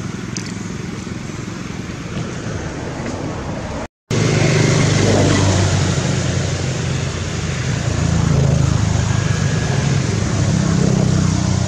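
Steady motor-vehicle engine noise with a low rumble. The sound drops out for a moment about four seconds in and comes back louder.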